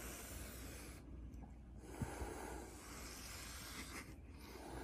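Two cats hissing at each other in long, faint, breathy hisses, with short breaks about a second in and again about four seconds in.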